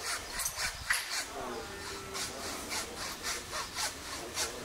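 Footsteps crunching on a path in a steady walking rhythm, about two and a half steps a second.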